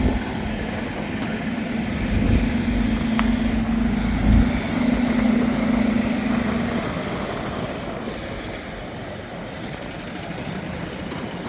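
A vehicle or machine engine hums steadily and stops about seven seconds in, over an uneven low rumble and outdoor noise.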